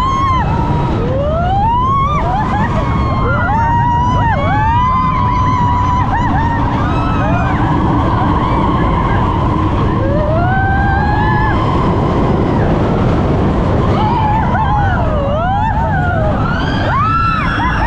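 Riders on the Big Thunder Mountain runaway mine-train roller coaster whooping and screaming in long rising and falling cries, several at once. Under them runs a steady loud rumble of the train and rushing wind.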